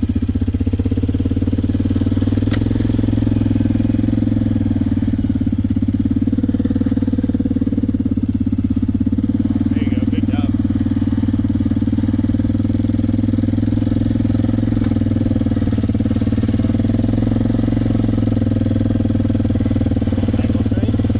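Four-wheeler (ATV) engine running steadily, its pitch and level unchanging throughout.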